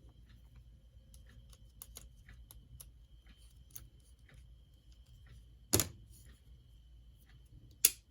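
Small parts of a model locomotive being handled and fitted, with scattered faint ticks and two sharp clicks about two seconds apart in the second half, as a coupler is pushed into place.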